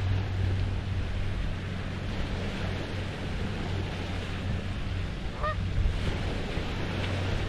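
Small Lake Huron waves washing on the shore as a steady low rumble, with one short goose honk about five and a half seconds in.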